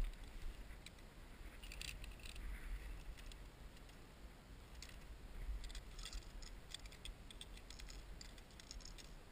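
Faint clinking and rattling of metal climbing hardware, carabiners and gear handled and clipped at a rock bolt while a rappel anchor is built, in scattered clusters of light clicks about two seconds in and again from about five to eight seconds in.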